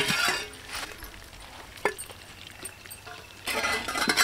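Stainless-steel plate lids clinking against clay pots as they are lifted off, with a couple of separate sharp clinks. Near the end comes denser clattering as a steel spoon digs into the cooked rice in a clay pot.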